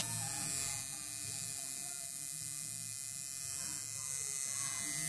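Tattoo machine buzzing steadily as the needle works into the skin, a loud, even electric buzz.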